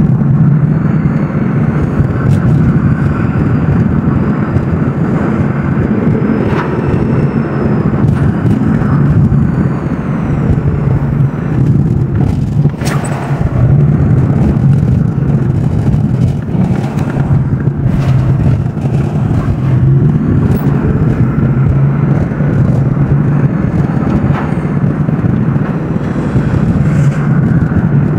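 Car driving at steady speed, heard from inside the cabin: a continuous low drone of engine and road noise, with a couple of brief clicks.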